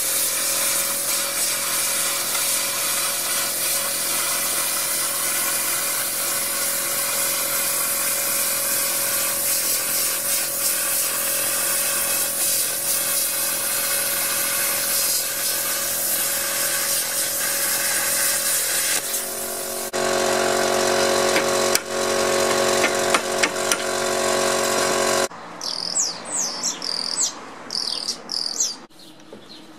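Handheld plasma cutter cutting steel plate, a loud steady hiss with a faint hum, its sound changing for a few seconds about two-thirds of the way through. It stops with about four seconds to go, leaving birds chirping.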